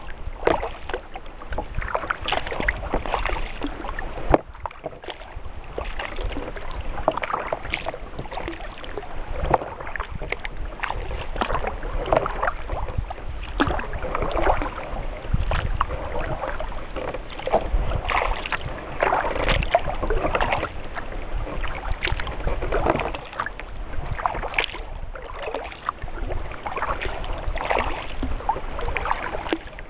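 Water splashing and trickling around a kayak being paddled across a calm lake: paddle blades dipping and dripping, with water lapping along the hull, in an uneven stream of small splashes over a low rumble.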